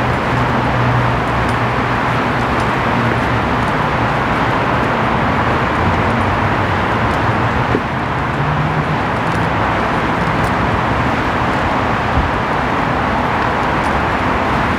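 Steady, even noise of road traffic, the tyres and engines of passing cars blending together, with low engine hums coming and going.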